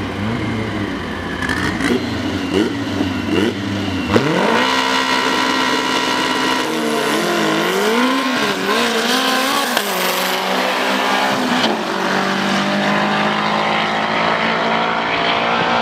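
Drag-racing car engines revving: a few short blips, then a sharp rev about four seconds in that is held high and wavers up and down, settling later to a steadier note.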